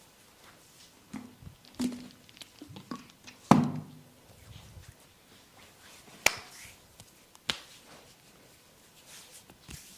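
Hands working on a person's body during a barber massage: a run of slaps and pats on skin, the loudest about three and a half seconds in, then two sharp clicks a little after six and seven seconds.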